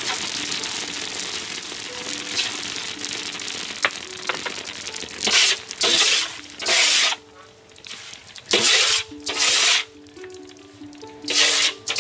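Rice puffing in a wok of hot sand as it is stirred with a paddle: a steady crackling hiss with scattered sharp pops. From about five seconds in, six loud rasping swishes, each about half a second, as the puffed rice and sand are shaken in a wooden sieve. Background music with held notes plays throughout.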